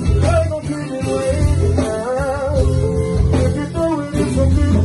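Live music: a man singing with vibrato into a handheld microphone over a guitar-led band.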